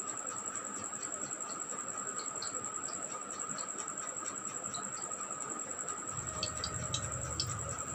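Hot cooking oil in a kadhai crackling faintly with scattered small ticks over a steady hiss, while fried okra drains in a wire strainer above it. A low rumble and a few clicks come in about six seconds in.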